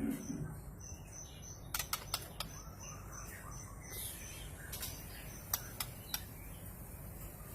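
White-rumped shama, pied (blorok) variety, giving sharp clicking "cekrek" calls: a cluster about two seconds in and a few more later. Under them runs a steady series of short high notes, about two a second.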